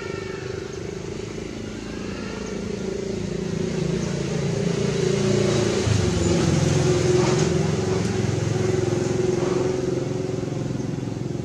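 A motor vehicle's engine passing by, growing louder to a peak about halfway through and then fading away.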